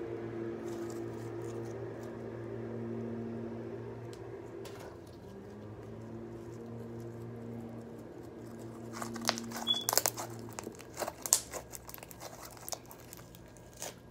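Homemade slime being squished and stretched in the hands. From about nine seconds in it gives off a run of sharp wet crackles and pops as air bubbles in it burst. Under the first part runs a steady low hum.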